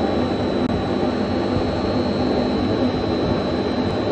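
Steady running noise of a CNC double-station HDPE pipe joint turning machine at work, with a constant high-pitched whine over it.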